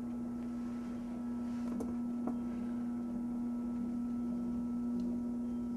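Electric potter's wheel motor humming steadily as the wheel spins, with a couple of faint light ticks about two seconds in.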